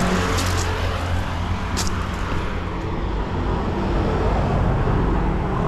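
Road traffic passing close by: car engines running and tyre noise, a steady rush that swells and eases, with a few short ticks in the first two seconds.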